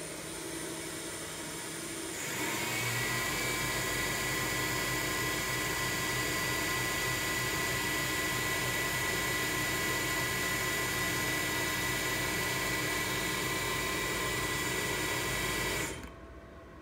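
VFD-driven CNC mill spindle running. About two seconds in it speeds up with a short rising whine and settles into a steady high whine, which cuts off sharply near the end when the stop button is pressed.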